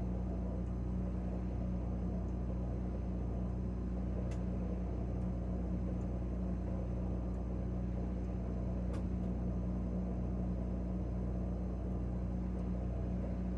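Refrigerator running with a steady low hum, with two faint ticks about four and nine seconds in.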